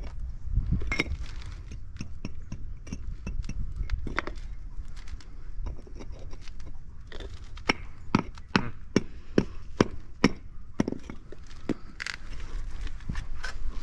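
Concrete pavers being knocked and shifted into place with a rubber mallet and by hand: scattered knocks and clinks, then a run of sharper taps about two to three a second in the middle.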